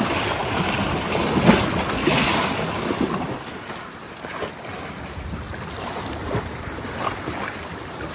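Wind buffeting the microphone over sea waves washing against the rocks, louder in the first few seconds. Through it come the rustle and handling of a cloth bag being rummaged, with a sharp knock about one and a half seconds in.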